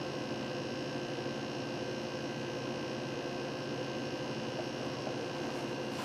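Steady electrical hum with several fixed tones, unchanging throughout, with no shot or impact.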